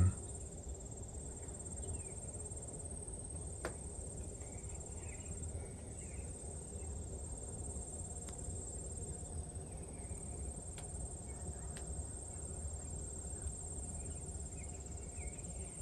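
Steady high-pitched trilling of insects, a thin continuous tone that does not let up.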